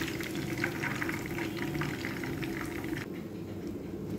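Chicken pieces deep-frying in hot oil in a cast iron pan, a steady bubbling crackle that cuts off suddenly about three seconds in.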